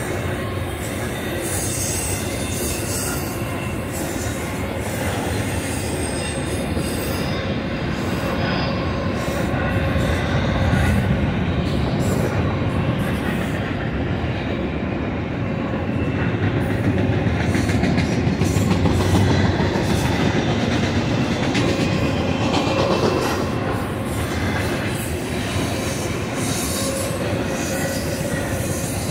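Union Pacific double-stack intermodal well cars rolling past: a steady rumble of steel wheels on rail with clicking over the rail joints and some wheel squeal on the curve. It swells a little twice in the middle.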